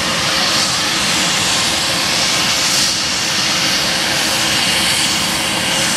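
Jet airliner's engines running, heard as a steady, loud rushing noise with a faint high whine.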